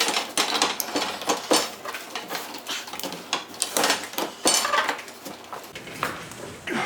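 Steel pipe and metal fittings clanking and scraping against each other in irregular knocks and clicks as the stand's legs are fitted.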